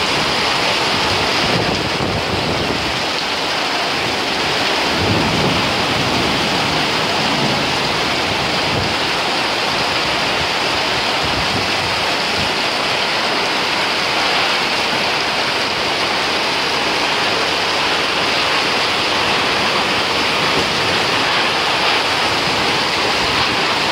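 Torrential cyclone-driven rain pouring down in gusty wind, a steady loud hiss that does not let up.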